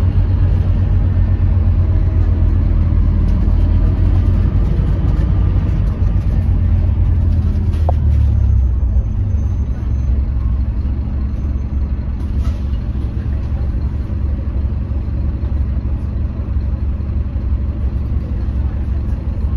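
Scania K310UB bus's five-cylinder diesel and drivetrain heard from inside the passenger cabin, a deep steady rumble while under way. It drops back and quietens a little about halfway through, with a click just before.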